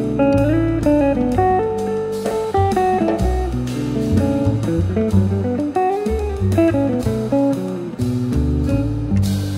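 Background music: a guitar-led tune with plucked melody notes over bass and a light drum beat.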